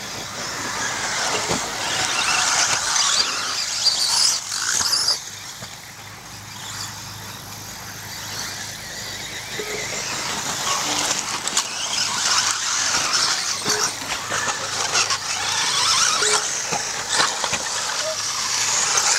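Radio-controlled off-road race cars running on a dirt track: a high-pitched whine that swells and fades as the cars pass.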